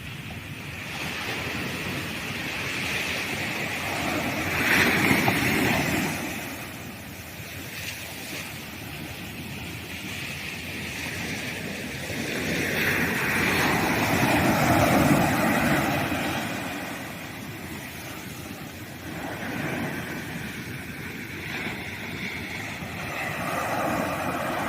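Sea waves breaking and washing up on a sandy beach, the surf swelling and ebbing, loudest about five seconds in and again around fourteen to fifteen seconds.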